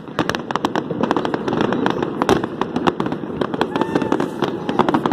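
Fireworks going off in a rapid, dense run of sharp bangs and pops, one after another with no gap.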